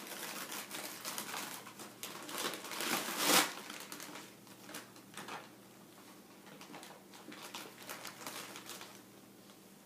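Gift wrapping paper being torn and crumpled in quick rips. The rips are busiest in the first few seconds, with the loudest about three seconds in, then thin out to occasional rustles.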